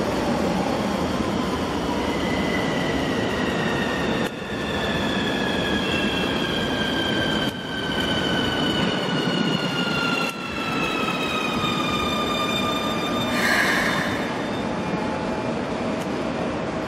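Keikyu 2100-series electric train braking along the platform: its inverter motors whine in several tones that fall slowly and steadily in pitch as it slows, over the rumble of the wheels. A short hiss of air comes near the end, as the whine fades out.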